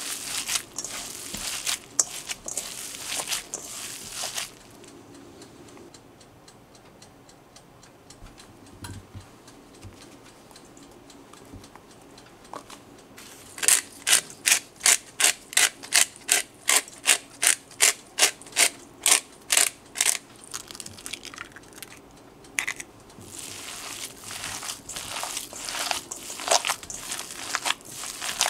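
Black pepper grinder being twisted over the bowl, a run of clicks at about three a second lasting some seven seconds in the middle. Before and after it, hands mix and knead raw ground meat in a stainless steel bowl.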